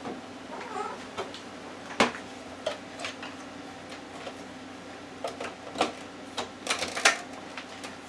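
Scattered sharp plastic clicks and knocks as a Ninja blender pitcher's lid is handled and pressed into place on the jar, with a cluster of clicks late on as it seats; the blender motor is not running.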